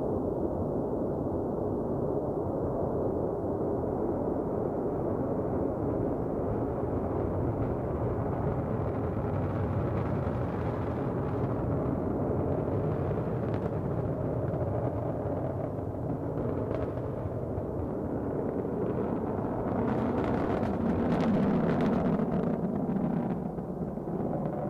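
Long March 4C rocket engines firing through liftoff and climb-out: a steady, loud, deep rumble. It swells a little louder and lower, with some crackle, about twenty seconds in.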